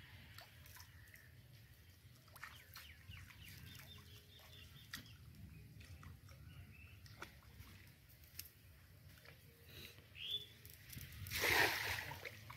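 Faint outdoor ambience with scattered small clicks and a few faint bird calls. Near the end comes a brief water splash as a man wading in a pond reaches down into the water to gather his cast net.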